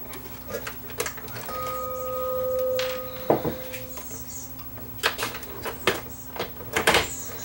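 Screwdriver and sheet-metal bracket clicking and knocking as screws come out of a CD changer's chassis. A steady tone swells and fades for about two seconds near the start.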